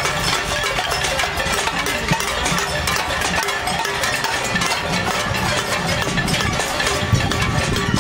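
Many pots and pans being struck by marching protesters in a casserole demonstration: a dense, continuous metallic clatter with no pause.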